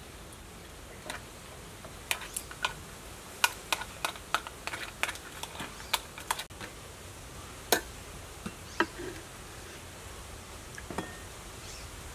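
Metal spoon clicking and scraping against the hard shell of a cooked mud crab as the meat is scooped out: a run of sharp clicks, thickest a couple of seconds in, then a few scattered ones.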